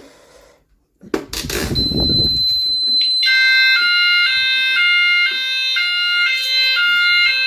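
Fire alarm sounders set off from a manual call point during a system test. After a click about a second in, a steady high tone comes on, and about three seconds in it is joined by an alternating two-tone sound that switches about twice a second.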